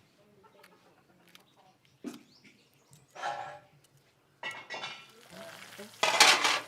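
Cooking sounds of pots and utensils: a knock about two seconds in, a few short scrapes and clatters, then a louder burst of noise near the end.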